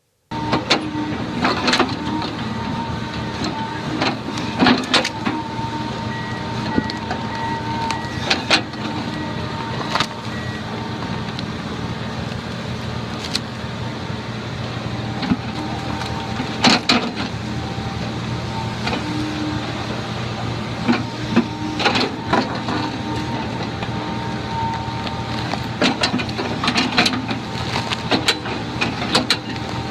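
Heavy forestry machine's engine running steadily under load, with sharp cracks and knocks at irregular intervals.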